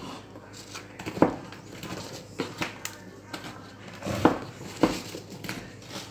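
Wooden spoon stirring broken biscuits through a thick chocolate mixture in a nonstick saucepan, with irregular knocks and scrapes of the spoon and biscuits against the pan.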